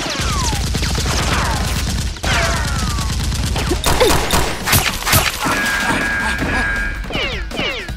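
Gunfire sound effects during a Nerf blaster shootout: a volley of shots with falling whizzing ricochets and a couple of sharp cracks about halfway through, over a pulsing background music track.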